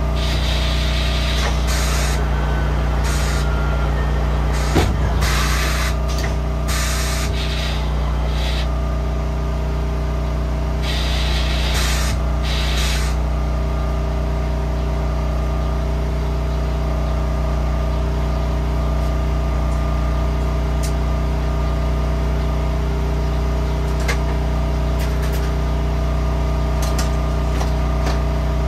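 Repeated short bursts of hissing compressed air, some lasting a couple of seconds, over a steady machine hum. The bursts stop about halfway through, and the hum runs on alone with a few faint clicks.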